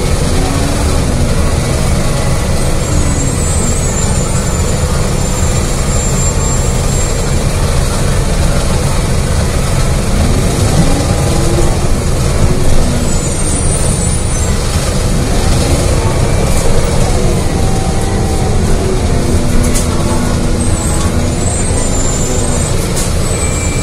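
2018 Gillig Low Floor 29-ft CNG transit bus under way, heard from on board: steady engine and road rumble, with the engine note rising and falling several times as it pulls away and slows. Faint high-pitched squeaks come and go.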